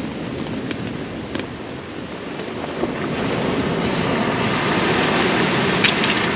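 Surf breaking and washing up a shingle beach, mixed with wind on the microphone; the wash grows louder from about three seconds in.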